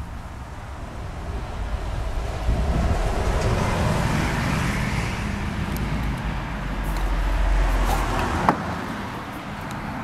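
A road vehicle passing by, its noise swelling over several seconds and then fading, with a single sharp knock near the end.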